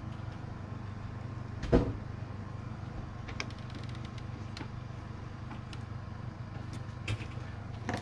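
Steady low hum of an idling vehicle engine, with one thump a little under two seconds in and a few faint clicks, from pulling back a car's plastic front bumper and grille.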